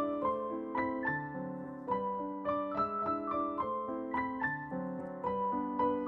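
Background piano music: a gentle melody of struck notes over chords, a few new notes each second.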